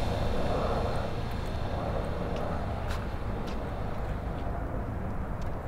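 Small electric motor of a radio-controlled LEGO Technic motorcycle whirring as it runs over asphalt, fading as it gets farther away, over a steady low outdoor rumble. A few light clicks come through in the middle.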